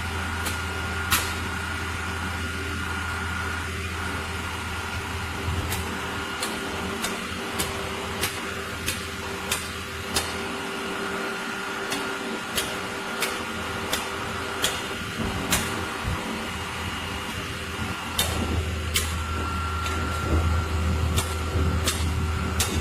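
A truck's engine running steadily, its low hum dropping away for several seconds mid-way and then coming back, with sharp knocks at roughly one a second through the middle.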